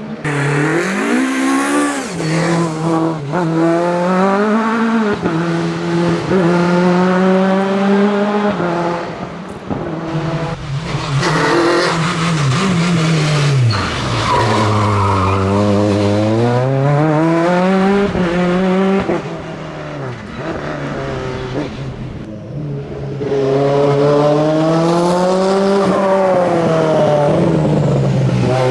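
Classic rally cars running hard on a stage, engines revving up and dropping back through gear changes, with tyre noise on the road.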